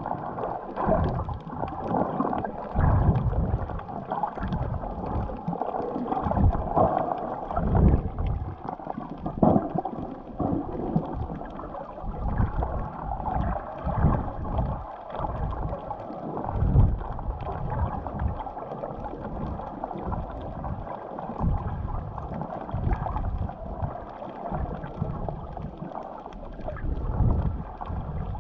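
Muffled underwater water noise picked up by a submerged camera: irregular low swishing and rumbling swells of water moving around the camera.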